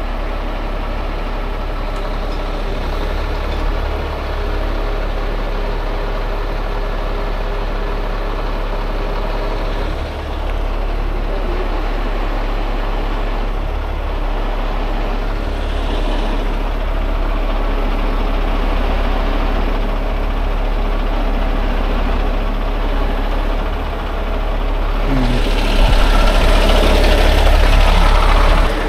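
Heavy diesel engine of a rotator tow truck running steadily at idle, growing louder near the end.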